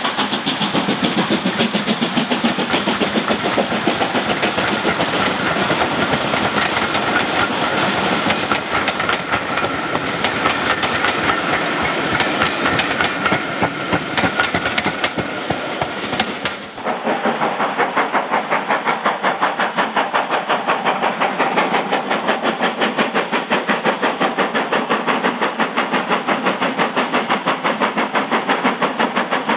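Passenger coaches of a steam-hauled train rolling close past, their wheels clicking steadily over the rail joints. About 17 seconds in the sound cuts to a small steam tank locomotive working hard, its exhaust beating in a fast, even rhythm.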